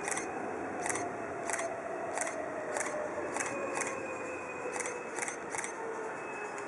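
E233-3000 series electric train's Hitachi IGBT-VVVF inverter whine, falling slowly in pitch as the train brakes into the platform. A series of short, sharp high clicks comes about every half second over a steady rumble.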